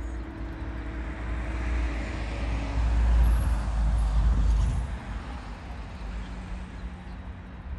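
A road vehicle passing close by: its tyre and engine noise swells to a peak around the middle and then fades away.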